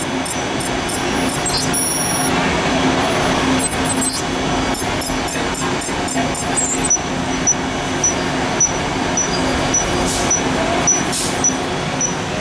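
Test Track ride vehicle running along its track: a steady rumble and hum with scattered clicks. About halfway through, a short high beep starts repeating a little under twice a second, and two brief hisses come near the end.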